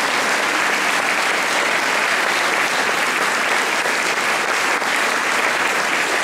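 Large audience applauding, a steady, even clapping that holds throughout.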